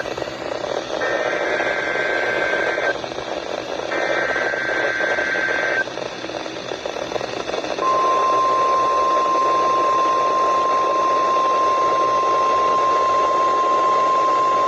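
NOAA Weather Radio emergency alert tones over radio hiss. First come two buzzy SAME digital header bursts, about two seconds each and a second apart. After a two-second gap the single steady, high warning alarm tone starts and holds. The sequence opens a required weekly test.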